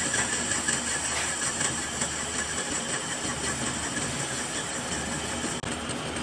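Metal lathe running steadily, with a high-pitched whine over the machine noise.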